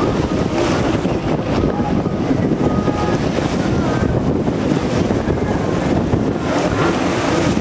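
Wind buffeting the microphone by the sea, with the engines of racing jet skis whining faintly in the distance through it.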